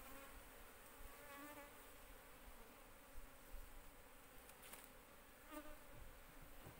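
Faint, steady buzzing of Asian cavity-nesting honeybees (Apis cerana) flying around.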